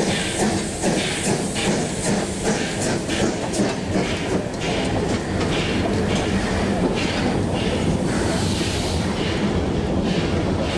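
FS Group 625 steam locomotive 625.177 and its vintage passenger coaches rolling past, with regular beats about twice a second over a steady rail rumble; the beats thin into a steadier rumble of the coaches near the end.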